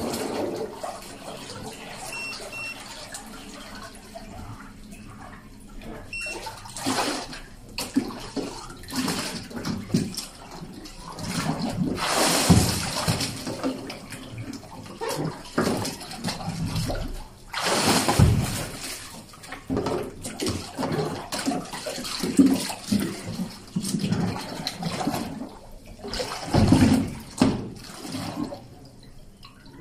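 Water splashing and surging in a tank as a bait boat is pushed back and forth and held in it, the water churned to foam around the hull. The splashing comes in irregular surges, loudest about twelve and eighteen seconds in.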